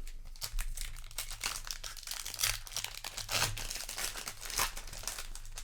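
Foil wrapper of a Magic: The Gathering play booster pack crinkling and tearing as it is handled, a dense, continuous run of crackles.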